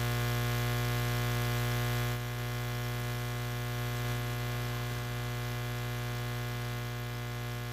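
Steady electrical mains hum with a buzzy stack of overtones, dropping slightly in level about two seconds in.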